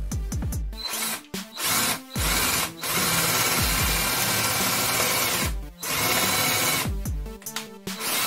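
Power drill boring into laminated chipboard in several runs with short stops between, the longest about three seconds.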